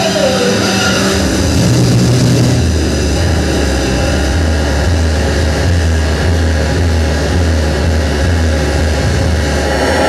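Harsh electronic noise music from a performer's effects rig: a loud, dense wall of noise with thin steady high tones over it. A low droning rumble comes in about two and a half seconds in and holds until just before the end.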